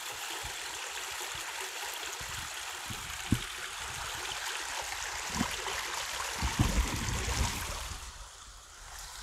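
A stream's running water makes a steady rush that fades away near the end. A few soft low thumps of footsteps come through about a third and two-thirds of the way in.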